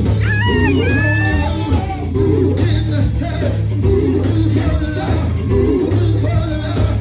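Live church music: a male vocal group singing into microphones over electric guitar, keyboard and a heavy steady bass. A high sliding melodic line rises above the voices near the start.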